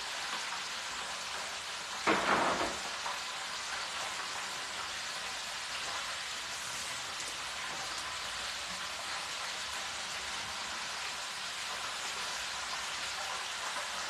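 Hot cooking oil sizzling with a steady hiss, with one short louder noise about two seconds in.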